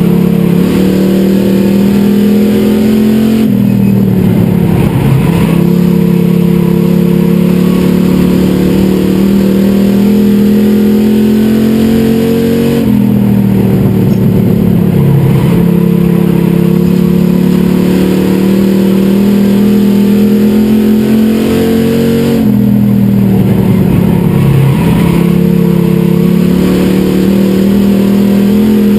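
Super Street stock car's engine heard loud from on board at race pace. Its pitch holds high on the straights and dips three times, about every nine or ten seconds, as the driver eases off for the corners, then climbs back under acceleration.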